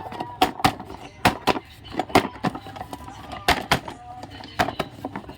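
Small hard plastic toy kitchen pieces clicking and tapping as they are handled and set down: about a dozen sharp, irregular taps, often in quick pairs.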